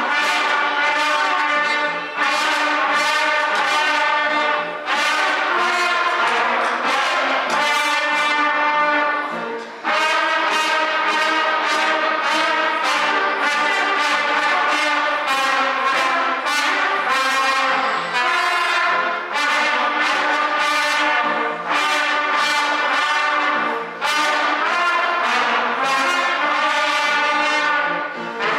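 Elementary-school trumpet players performing a tune together, a quick run of brassy notes with short breaks between phrases.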